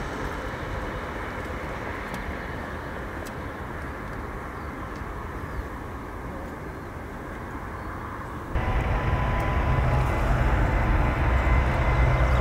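Airbus A380's four Rolls-Royce Trent 900 turbofans running as the jet taxis, a steady jet whine and rush. About two-thirds through the sound jumps to a much louder, deeper rumble with a steady high whine that keeps building as the engines run up to high thrust on the runway.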